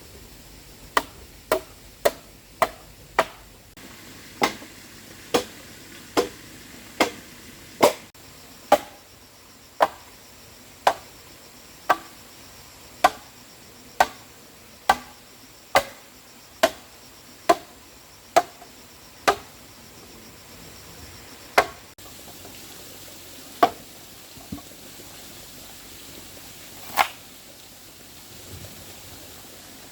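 A hand tool striking hard material in repeated sharp blows, like chopping or hammering: roughly one to two strikes a second for most of the time, then three more, spaced further apart, near the end.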